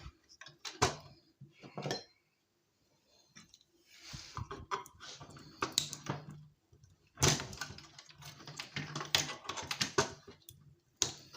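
Parts of an old electronic device clattering and knocking as it is dismantled by hand, in irregular bursts of sharp clicks and rattles.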